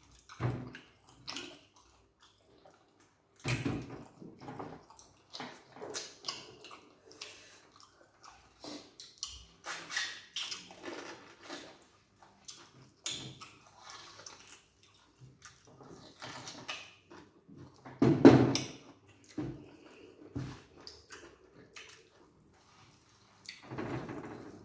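Close-miked eating sounds of two people eating starch, banga soup and meat by hand: wet chewing, lip smacking and finger licking in irregular clicks and smacks, with one louder burst about two-thirds of the way in.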